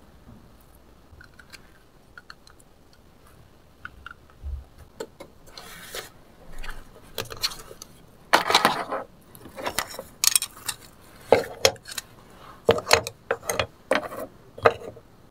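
Small plastic toy food pieces and toy dishes clicking and clattering as they are picked up and set down. It is quiet for the first few seconds, then comes an irregular run of sharp taps and clacks.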